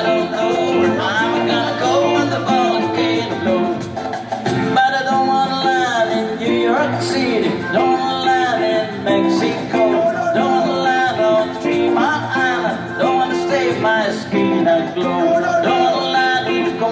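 A man singing over his electric guitar, amplified through a small PA speaker.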